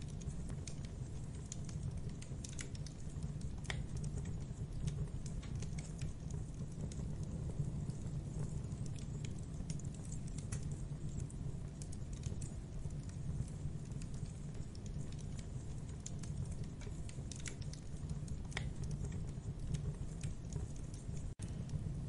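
Campfire burning: scattered sharp wood crackles and pops at irregular intervals over a steady low rumble. The sound drops out for an instant near the end.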